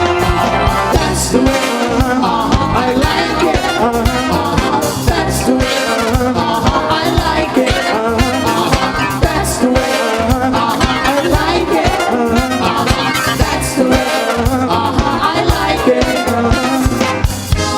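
Upbeat 1980s pop music with brass horns over a steady drum and bass beat.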